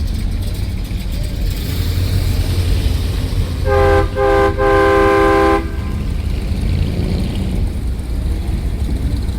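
A car horn honks three times, two short toots and then a longer blast, about halfway through. Under it, car engines rumble steadily at low pitch.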